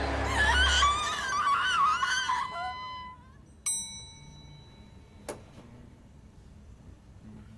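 A person screaming at a high pitch over a held musical note for about three seconds, cutting off. Then a single bright, ringing ding, followed by a faint click.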